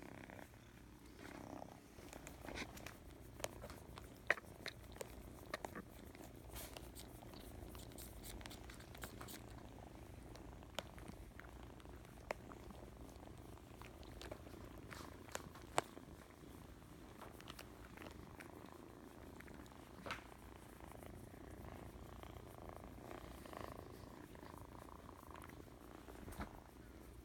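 Kitten purring steadily close up, a low continuous rumble, with scattered small clicks and rustles of handling and fur.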